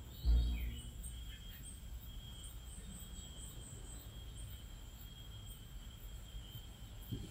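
Quiet rural outdoor ambience: insects giving a steady high tone, with faint short high chirps over a low rumble. A brief low thump comes shortly after the start.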